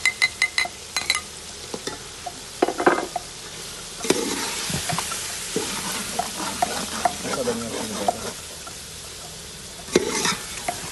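Metal ladle stirring chicken and dry spices in a metal cooking pot, with sharp clinks and scrapes of the ladle against the pot, over the sizzle of the chicken frying (bhuna) in oil. A quick run of clinks comes right at the start and another near the end, and the sizzle grows louder from about four seconds in.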